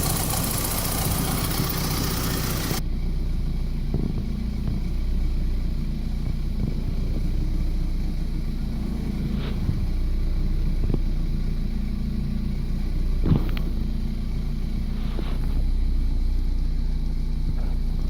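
BMW 318i E36's four-cylinder engine idling steadily on a running test after a thermostat replacement. A loud hiss runs over it for the first three seconds or so and cuts off suddenly. A few faint ticks come later, the clearest about thirteen seconds in.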